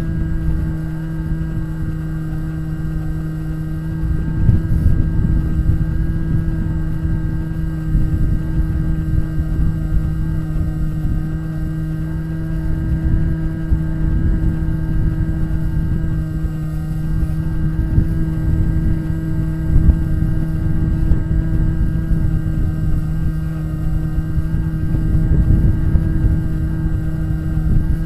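Bixler RC glider's electric pusher motor and propeller running steadily in flight, a constant droning hum, with wind rumbling on the onboard microphone.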